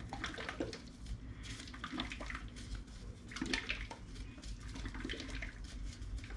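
Gloved hands handling and turning a small bottle of oil additive: faint rustles and a few light clicks over a steady low hum.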